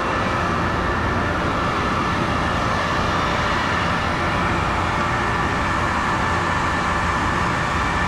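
Running condenser water pumps and their electric motors, a steady, even machine noise with a constant low hum.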